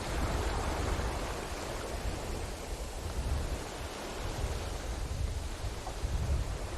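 Ocean surf washing on a beach, a steady rush of waves with a deep low rumble, easing a little in the middle and swelling again toward the end.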